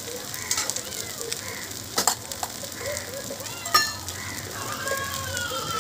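Egg dosa sizzling steadily on a hot tawa, a steady high hiss with a few sharp crackles, the loudest about two seconds in and again near four seconds.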